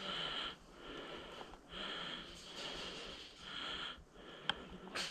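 A person breathing hard and steadily close to the microphone, each breath a soft rushing swell about a second long. A single sharp click comes about four and a half seconds in.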